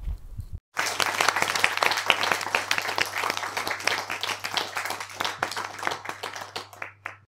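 Applause from a crowd, many hands clapping. It starts abruptly about a second in after a brief low rumble, and thins out and stops near the end.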